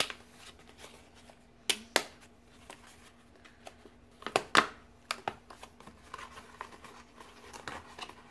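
Paper packaging of a mini skein of yarn being opened by hand: a few sharp snaps and tears, the loudest a cluster about four and a half seconds in, then softer crinkling of paper.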